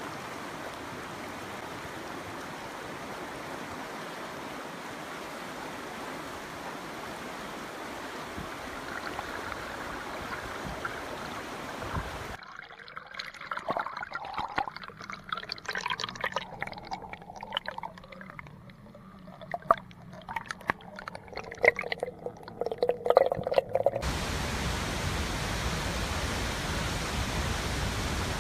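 Flowing river water: a steady rush for the first twelve seconds, then gurgling and splashing with the microphone right at the water surface, then about 24 seconds in a louder, deeper rush from a waterfall.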